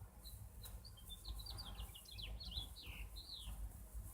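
Small bird chirping: a quick run of short, high chirps and a few downward-sliding notes in the middle, over a faint steady low hum.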